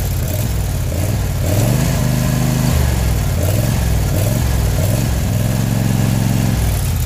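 Small vertical-shaft gas engine of a homemade tracked vehicle running and being revved by hand at the throttle linkage. Its pitch rises about a second and a half in, drops back, wavers up and down, then holds fairly steady near the end.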